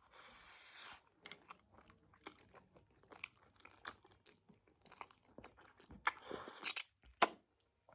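Close-up eating sounds: a short rush of noise at the start, then crunching bites and chewing with many small clicks, and a louder crunchy stretch ending in a sharp crack near the end.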